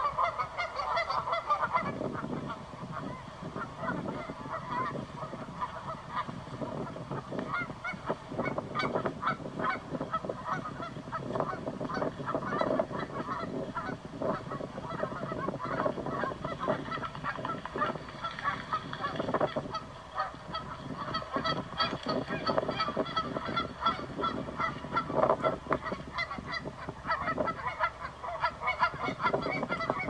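A flock of waterbirds calling continuously, many short overlapping calls with no pause.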